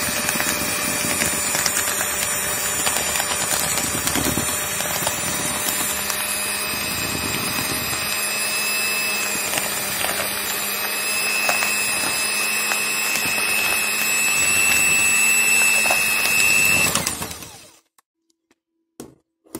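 Electric hand mixer running steadily, its beaters working a crumbly flour, sugar and egg mix in a plastic bowl, with a high motor whine; it switches off about seventeen and a half seconds in.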